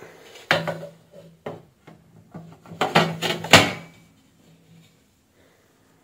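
Stainless steel weighing pan handled and set onto the platform of an electronic weighing scale, giving a few sharp metallic knocks and a clatter. The loudest knocks come around three and a half seconds in.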